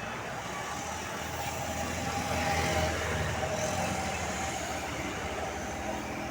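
Heavy road vehicle's engine running with a low steady drone, a little louder around the middle.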